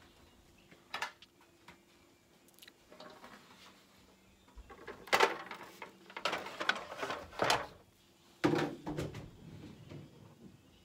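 Irregular knocks and clatter of objects being handled and bumped, with a few faint taps at first and louder knocks, roughly one a second, in the second half.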